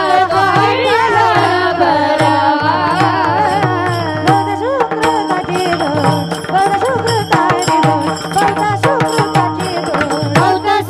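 A woman sings a Marathi Varkari devotional melody (panchapadi), with ornamented, gliding lines over a steady drone and regular drum beats.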